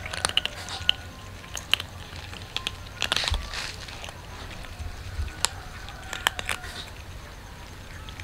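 Cats crunching dry kibble: irregular sharp crunches, coming in quick little clusters.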